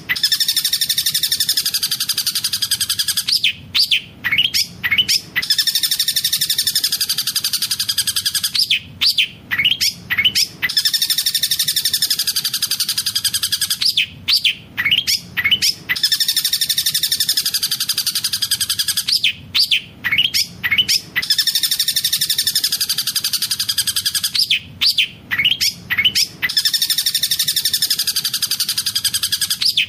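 Long-tailed shrike (cendet) singing a fast rolling trill of about three and a half seconds, broken by short clusters of sharp separate notes, over and over about every five and a half seconds. The song is filled with mimicked collared kingfisher (tengkek buto) calls.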